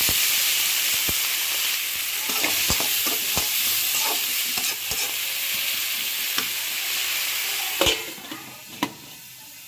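Vegetables sizzling and hissing in an aluminium pan just after a little water is poured into the hot oil, with a metal spatula clicking and scraping against the pan as it stirs. Near the end a metal lid clanks onto the pan twice and the sizzle drops to a faint hiss.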